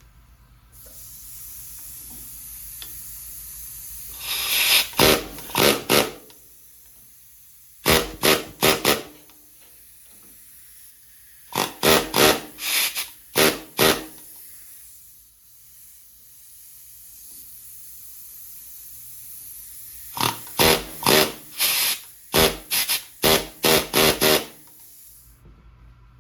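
Pneumatic air hammer rattling on the end of a tractor's steering shaft in four runs of short blasts, with a steady air hiss between the runs. It is trying to shock a rusted-on steering wheel loose, and the wheel is not moving.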